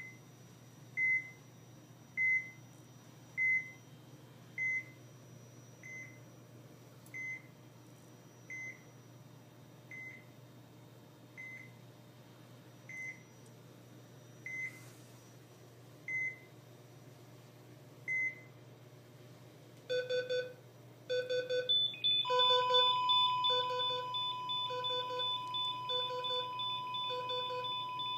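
Heart rate monitor sound effect: a single high beep about once a second, gradually slowing. From about twenty seconds in, a faster, lower beeping with several tones takes over, and a continuous steady tone joins it a couple of seconds later.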